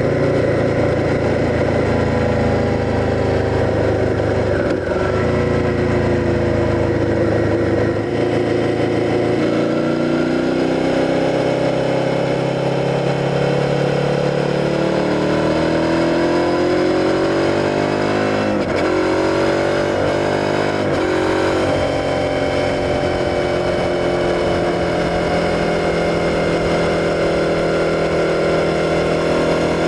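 Suzuki SV650's 645 cc 90-degree V-twin engine under way on the road. Its pitch sinks early on, then climbs twice, dropping abruptly about 19 and 21 seconds in, and then holds steady.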